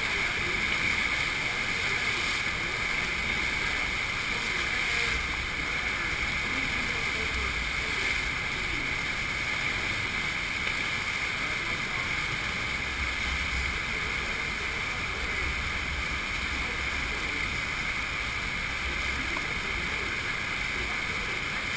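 Steady rushing of a sheet of water pumped up the slope of a FlowRider-type artificial wave, heard close to the water's surface.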